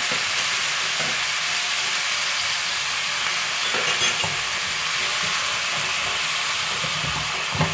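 Minced pork and garlic sizzling in oil in a wok, with a steady frying hiss, while a silicone spatula stirs and scrapes the mixture.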